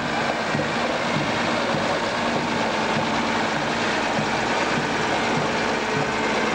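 Diesel engine of a Mercedes-Benz Unimog army truck running steadily as it drives past close by, with a second army truck following behind it.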